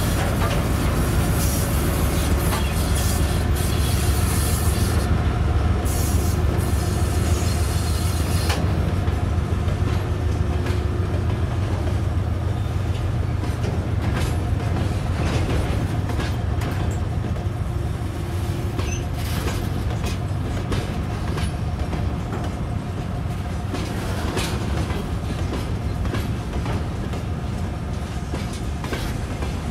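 Freight train passing close by. The rear section of a 2TE10M two-section diesel locomotive, with its two-stroke opposed-piston diesel, goes by in the first several seconds. Then a string of open freight wagons rolls past with a deep rumble and a steady run of wheel clicks on the rails, the whole sound slowly fading as the locomotive draws away.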